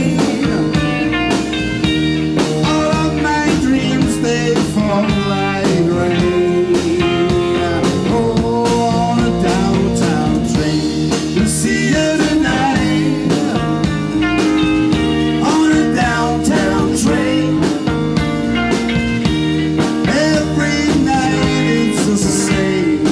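A live rock band playing a blues-tinged song: electric guitar, bass guitar and drums keeping a steady beat, with a male singer's voice over it at times.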